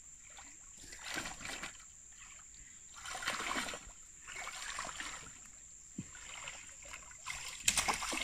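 Creek water sloshing and splashing in several short surges as a person wades chest-deep through it, pushing through with arms and body.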